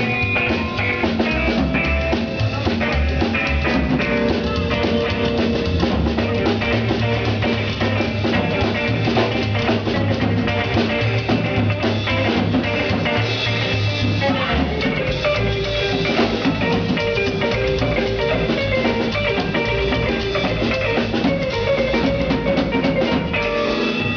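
Rock music with drum kit and electric guitar playing, loud and continuous, cutting off abruptly at the end.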